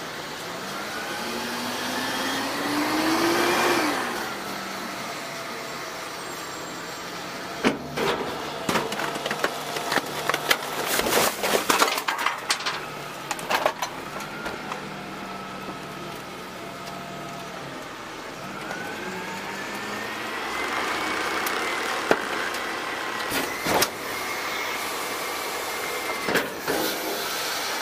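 DaDee Scorpion full-eject automated side-loader garbage truck at work. The engine and hydraulics rev with a rising whine as the packer blade cycles. About eight seconds in, a burst of clattering and thuds comes as a cart of bagged trash is dumped into the hopper, then the rising hydraulic whine returns for the next packing stroke, with a few sharp knocks near the end.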